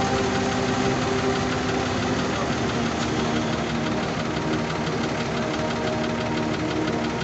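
Nissan diesel engine of a Tadano 50.5-ton telescopic truck crane running steadily with an even clattering pulse.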